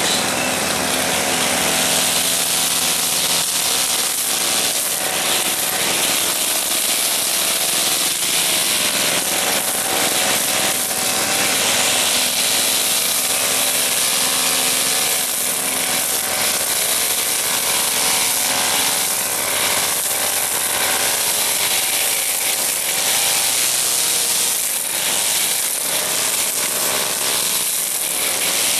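Petrol brush cutter running at high revs while its line head cuts grass, its engine note wavering slightly up and down as it meets the grass.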